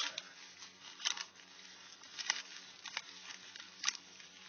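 A stapled stack of paper coupons being flipped through one by one, with four crisp paper flicks over light rustling.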